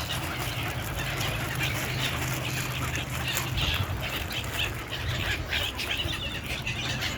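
A flock of seagulls squawking, many short harsh calls overlapping, over a low steady hum.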